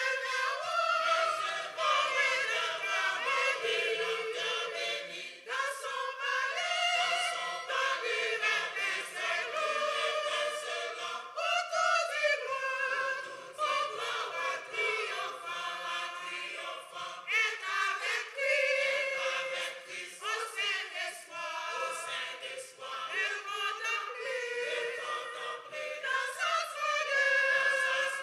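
Mixed church choir of women and men singing a hymn together.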